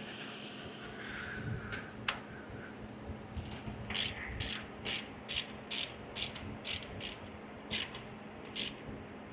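Socket ratchet clicking while snugging down the tunnel ram intake manifold bolts: one sharp click about two seconds in, then a steady run of clicks at about two a second.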